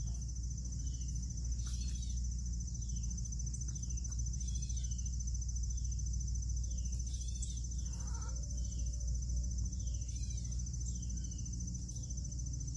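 Insects, crickets by the sound of the tags, trilling steadily at a high pitch, with a bird repeating short falling chirps about twice a second over a low steady rumble.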